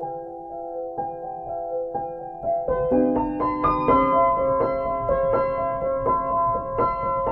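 Background piano music, slow and soft, growing fuller and louder about three seconds in as lower notes join.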